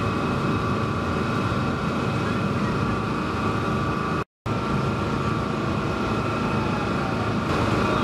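Steady drone of a ship's engine over the rushing of its propeller wash. There is a brief total dropout a little past four seconds in, after which the same sound resumes.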